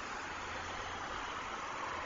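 Road traffic on a city highway: a steady wash of tyre and engine noise from passing cars, growing slightly louder near the end.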